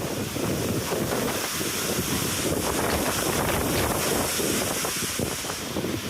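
Heavy rain pouring steadily, with wind buffeting the microphone.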